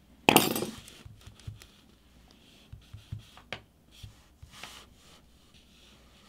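Small hand tools, a pair of tweezers and a pry tool, set down on a tabletop with a brief clatter about half a second in. Then come a few light taps and clicks from fingers tapping a phone's glass touchscreen.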